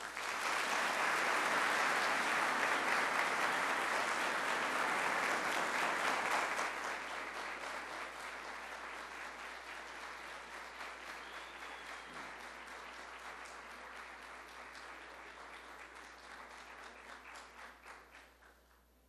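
Audience applauding after a speech, loud for about six seconds, then slowly dying away and stopping near the end.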